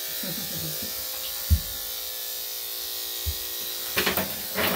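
Electric dog grooming clippers running with a steady buzz. A sharp low thump about a second and a half in, a smaller one later, and a few short knocks near the end.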